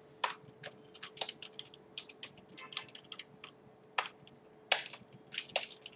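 Typing on a computer keyboard: irregular keystrokes, a few louder ones about two-thirds of the way in.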